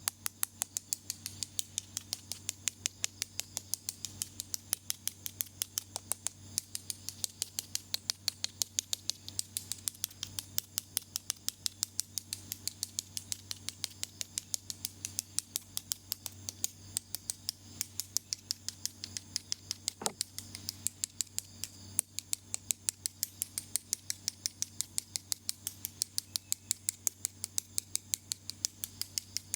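Small ear pick scratching and clicking in an ear: a steady run of crisp clicks, about four a second, over a faint low hum.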